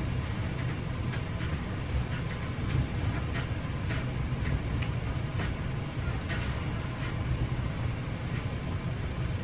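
Bedding rustling in short, soft strokes as a person shifts and settles under a quilted comforter, over a steady low hum.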